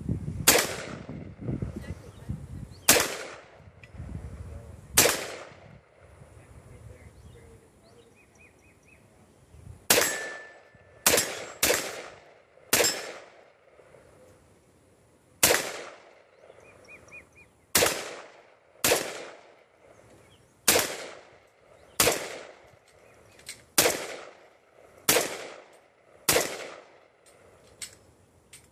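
Custom AR-15 semi-automatic rifle fired shot by shot, about fifteen shots mostly about a second apart, with a pause of several seconds after the first three.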